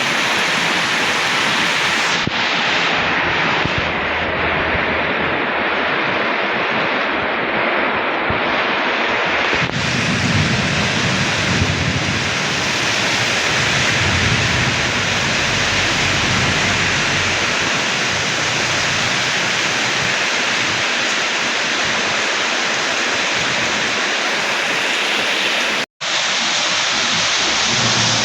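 Steady, loud hiss of heavy rain pouring down, with a low rumble beneath it in the middle stretch. The sound cuts out for an instant near the end.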